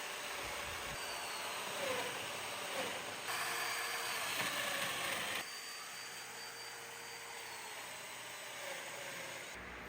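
Steady whirring noise of woodworking power tools in short spliced clips, changing abruptly at each cut, with faint pitch glides as a motor speeds up or slows down.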